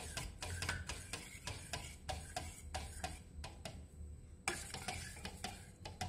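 Steel spoon stirring ground rice cooking in water in a stainless steel pot, clinking and scraping against the pan several times a second, with a short pause just past the middle.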